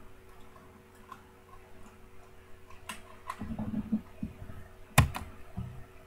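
A Rubik's cube being handled at a desk: scattered light clicks and a short rustle, then one sharp knock about five seconds in.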